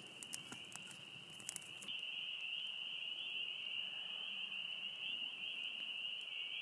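Chorus of spring peepers: a dense, steady mass of high peeping calls, getting louder about two seconds in. A few sharp light clicks in the first second and a half.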